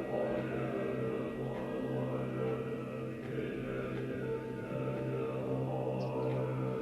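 Ambient new-age music: a steady low drone under sustained, chant-like tones.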